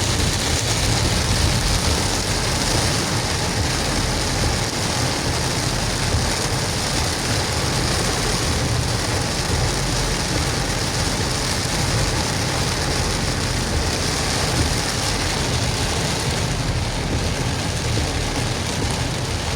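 Heavy rain falling steadily around a moving car, over a low rumble of engine and road.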